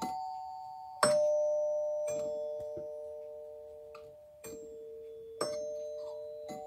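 Chimes of an old four-note musical doorbell struck one at a time, each note ringing on and fading slowly. The notes fall over the first three strikes, then after a pause of about two seconds they climb back up again.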